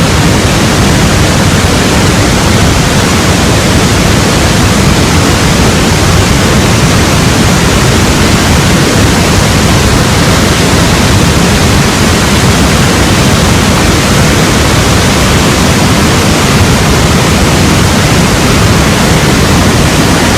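Waterfall's rushing water heard close up: a loud, steady, even hiss of noise with no breaks.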